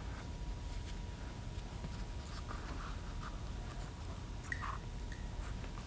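Faint handling sounds of string being drawn through the handles of a pair of metal scissors on a padded desk top: light rustling with a few small clicks.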